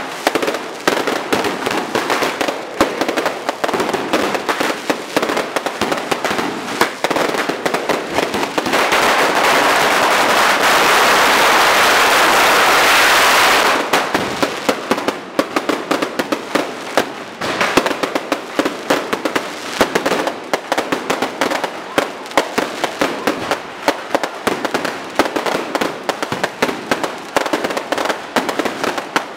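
Electronically fired firecrackers going off in fast, dense volleys of cracks. From about nine to fourteen seconds in, the cracks run together into one continuous rattle.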